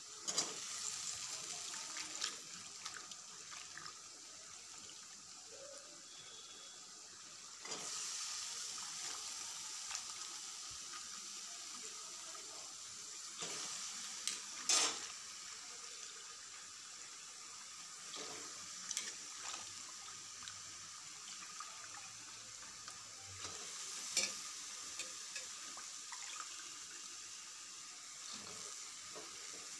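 Food sizzling in a wok on a gas stove as spice paste and then wet leafy greens fry, a steady hiss that grows louder about a quarter of the way through. A few sharp knocks of the spatula against the pan come through it.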